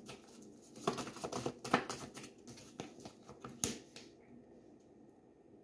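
A deck of tarot cards being shuffled by hand: a quick run of crisp card clicks and flicks, ending with a sharper slap about three and a half seconds in as a card is laid down on the wooden table.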